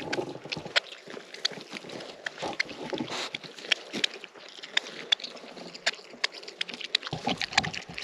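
Pigs chewing carrots close up: a run of irregular, crisp crunches and mouth smacks, several a second.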